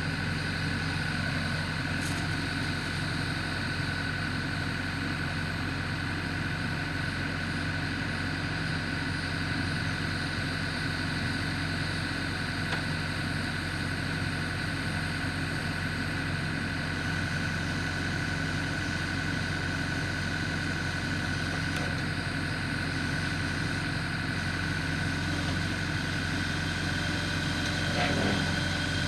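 Backhoe engine running steadily at idle while it lifts and shifts a log, the engine note rising slightly near the end.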